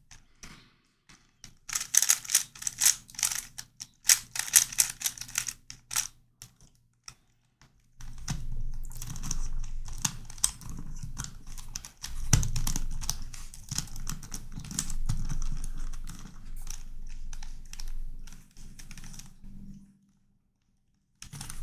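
Plastic pieces of a non-magnetic Corner Helicopter twisty puzzle clicking and rattling as it is turned quickly. Runs of sharp clicks come first, then about eight seconds in a longer, denser stretch of continuous turning that stops near the end.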